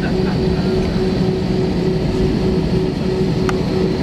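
Cabin noise of an Airbus A319-132 taxiing, heard from a window seat over the wing: the steady hum of its IAE V2500 engines at low thrust and the cabin air system, with a steady low drone and a few faint clicks.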